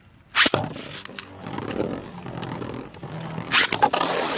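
A pair of 3D-printed Beyblade spinning tops is launched with a sudden zip, then whirs and scrapes around the stadium. Sharp clacks ring out where the tops hit each other, with a loud cluster of them near the end.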